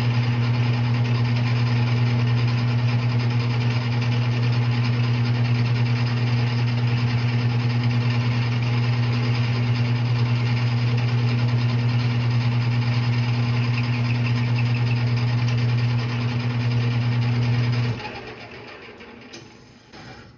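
Metal lathe running at a steady speed with a strong low hum. It is switched off about 18 seconds in and spins down.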